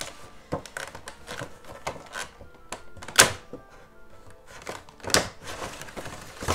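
Cardboard Funko Pop box and its clear plastic tray being handled and slid apart: a run of scrapes, rustles and knocks, the loudest about three seconds in and again about five seconds in.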